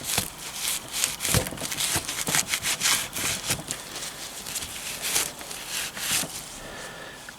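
Irregular hand scraping and rubbing strokes on the metal engine casing of a Triumph Bonneville T140, as it is cleaned of old black powder coating.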